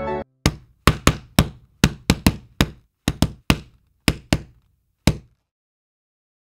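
About a dozen sharp knocks or taps at an uneven pace, each ringing briefly, following the end of a piece of music and stopping about five seconds in.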